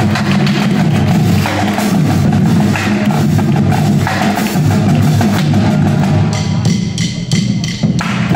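Indoor drumline playing: marching snare drums, tenor drums, bass drums and cymbals in fast, dense rhythms. About six seconds in the playing thins to a sparser pattern of evenly spaced strokes.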